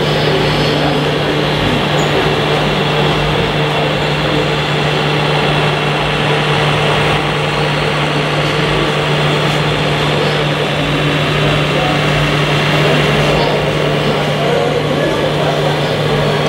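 Radio-controlled model truck driving with a steady, unchanging engine-like drone and a constant low hum, over faint background chatter.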